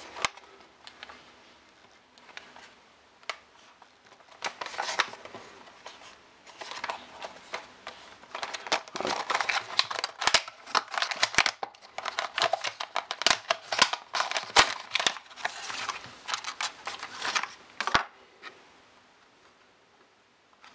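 Cardboard box and clear plastic blister tray being handled and opened: a run of rustling, scraping and clicking starting a few seconds in, with one sharp click near the end.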